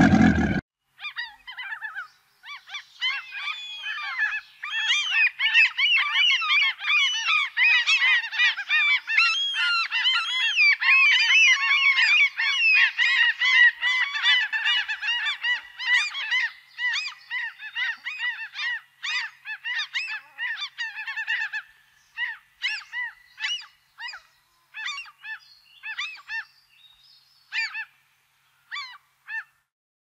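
A flock of gulls calling, many overlapping calls at once, which thin out about two-thirds of the way through to scattered single calls and then stop. A loud low rumble cuts off about half a second in.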